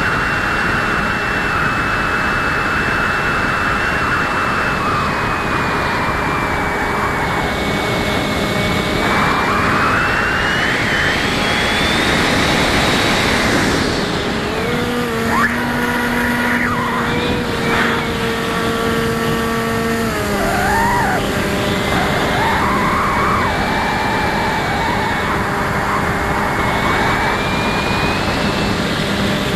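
Electric motor and propeller of an RC plane whining in flight, heard from a camera on the plane, with steady wind rush. The whine climbs in pitch about ten seconds in, drops back a few seconds later, and climbs again near the end.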